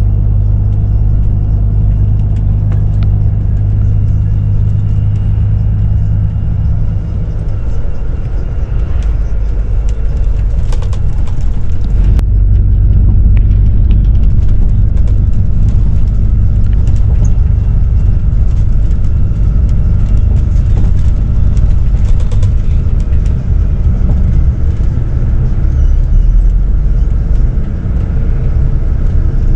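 Coach bus driving at road speed, heard from inside the passenger cabin: a steady low engine and road rumble that grows louder about twelve seconds in, with scattered light rattles.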